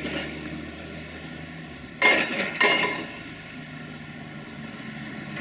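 Excavator-mounted hydraulic breaker working on concrete demolition rubble over the machine's steady engine hum, with two loud crashes of concrete cracking and rubble clinking about two seconds in, half a second apart.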